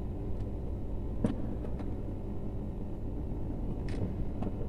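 Faint clicks and a brief scrape of hands working electrical cable wires with pliers, twisting the wire ends together, over a steady low background rumble. The sharpest click comes about a second in.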